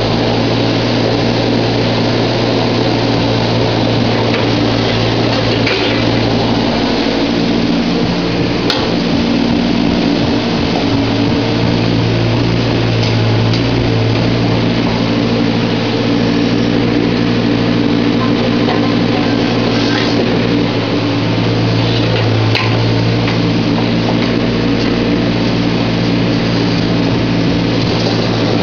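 Volvo EC15 mini excavator's diesel engine running steadily while it digs, with a few brief knocks.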